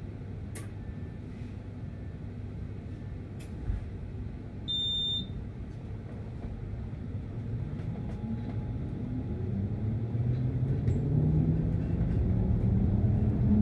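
Tram's electric traction motors whining up steadily in pitch and getting louder as the tram gathers speed, over a low rumble. A short electronic beep sounds about five seconds in.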